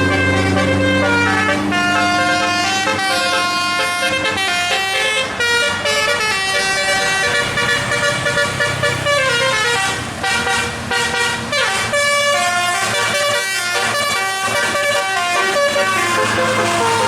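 A bus's 'telolet' multi-note musical air horn playing a fast melody, its notes changing every fraction of a second, with the bus engine running underneath.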